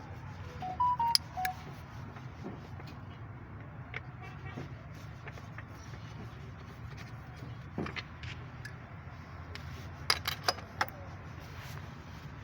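Sharp clicks and knocks of hand tools being handled on engine parts, scattered, with a cluster about ten seconds in, over a steady low hum. A few short high tones sound about a second in.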